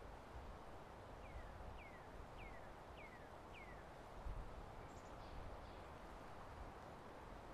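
A bird calling: a run of five short whistled notes, each falling quickly in pitch, about two a second, over a faint steady background hiss.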